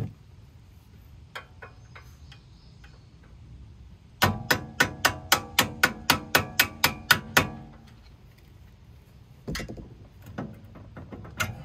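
Quick metal-on-metal strikes on the front strut assembly of a 2006 BMW X5 (E53), about a dozen in a row at about four a second, each leaving a ringing tone. A few more single knocks follow near the end.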